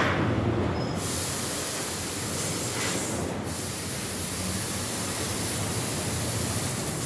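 CNC cutting machine running: a steady low hum, with a strong high hiss of the cut that starts about a second in and carries on.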